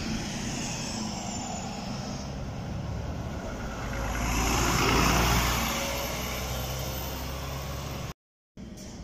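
City bus engine running as the bus moves past close by. It grows louder to a peak about five seconds in, then fades as the bus moves away, and cuts off suddenly near the end.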